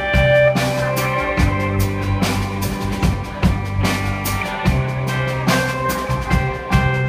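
Live rock band playing an instrumental passage: electric guitars and bass guitar holding sustained notes over a drum kit keeping a steady beat with bass drum, snare and cymbals.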